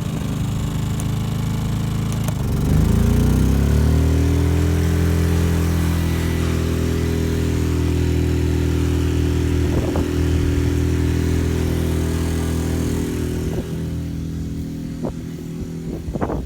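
Westinghouse WH2000iXLT inverter generator in eco mode, its engine running. About three seconds in, the engine revs up and then holds a higher, steady speed: it is picking up a 1600-watt heat gun load.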